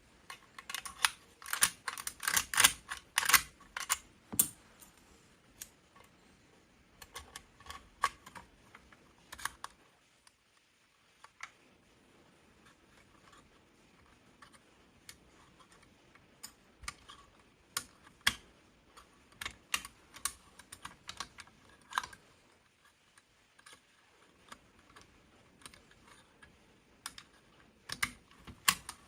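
Hobb lock-opening tool being worked inside an Arcu-type lever lock: irregular sharp metal clicks and rattles in clusters, busiest in the first few seconds and again near the end.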